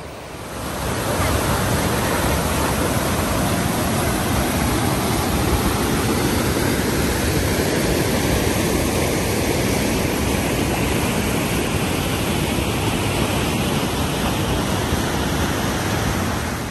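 Whitewater rushing over granite boulders, a loud steady roar of water that swells about a second in.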